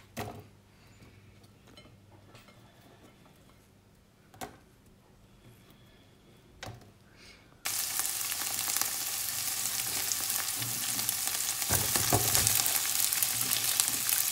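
Sliced onions frying in oil and butter in a stainless steel pan. After a quiet start with a few faint clicks, steady loud sizzling starts abruptly about halfway through, with a couple of soft knocks a few seconds later.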